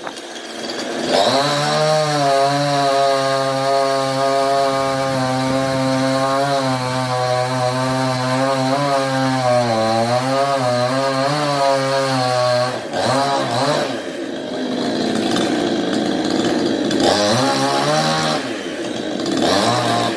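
Chainsaw running at high speed as it cuts into a tree, its pitch dipping briefly under load about ten seconds in. About thirteen seconds in it drops back, then revs up again in short bursts near the end.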